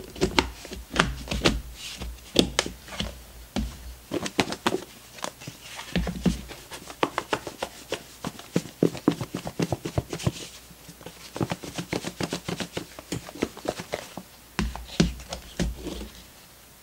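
Raw chicken pieces being shaken with flour in a lidded plastic container to coat them: a long run of irregular knocks and thumps of the pieces against the container walls, with a short lull about four seconds in.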